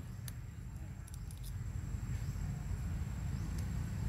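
Quiet outdoor background: a low steady rumble with a thin, steady high whine over it and a few faint ticks and rustles, mostly in the first second and a half.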